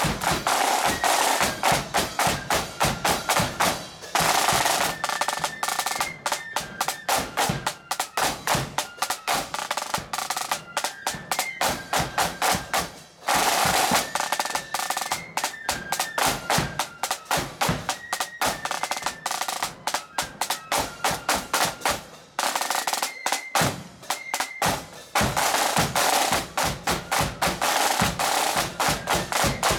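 Marching band side drums playing rapid strokes and rolls, with a bass drum, under a high stepping melody line.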